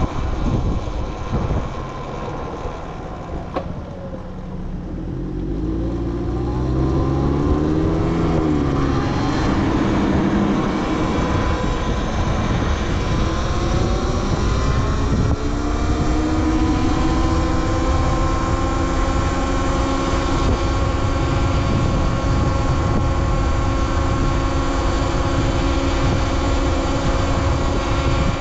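Talaria Sting R MX4 electric dirt bike being ridden: the electric motor's whine rises in pitch as the bike accelerates from about five seconds in, then holds steady at speed over a constant rushing noise.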